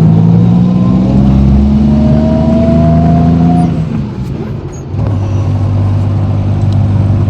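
Motor vehicle's engine pulling up a steep road, its pitch rising steadily for about three and a half seconds, then falling away briefly before settling into steady running at a lower pitch about five seconds in.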